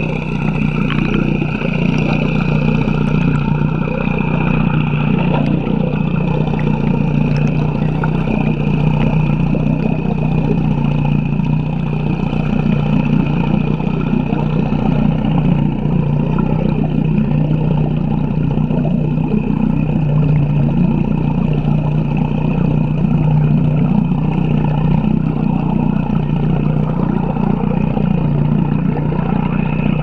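Outboard motor running steadily under way, heard from underwater beside its spinning propeller: an unbroken low drone.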